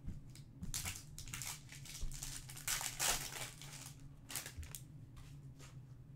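Plastic wrapper of a Topps Match Attax trading-card pack crinkling as it is handled and slit open with a blade, loudest about three seconds in, with a few short crackles after.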